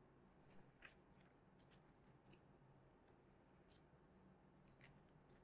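Near silence with faint, scattered little ticks and rustles of paperback book pages being handled and leafed through.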